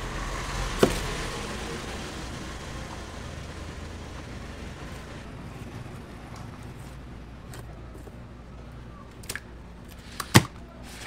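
Knife knocking on a wooden cutting board as ocean sunfish flesh is sliced: one sharp knock about a second in and a few more near the end, the loudest just before the end, over steady outdoor background noise.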